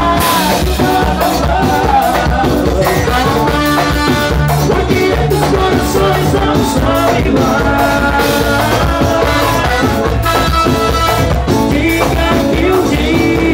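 Live band playing lambadão: electric guitar, bass guitar and drum kit keeping a steady dance beat, with a male voice singing into a microphone.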